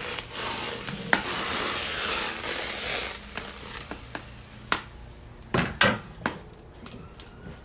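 Hot mustard oil sizzling in a pan, with the hiss dying down after about three seconds; then several sharp knocks of a utensil against the pan.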